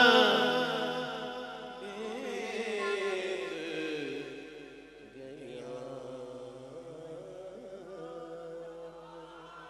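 Male vocalist singing a drawn-out devotional melody into a microphone through a sound system, the held notes gradually fading out.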